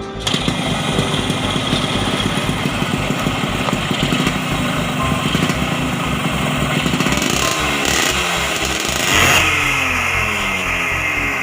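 Yamaha RX-King's single-cylinder two-stroke engine running with a fast, even popping beat. It is blipped louder about nine seconds in, then the revs fall away.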